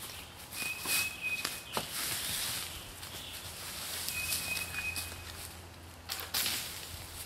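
Footsteps and rustling in dry leaf litter as a person walks through woods and clears fallen sticks, loudest about a second in and again near the end. A bird whistles a short, steady single note twice, a few seconds apart.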